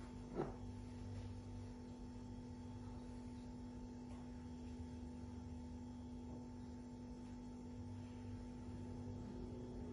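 Steady electrical hum with a few faint higher tones, and one brief knock about half a second in. The knock comes as a plate is moved on the countertop.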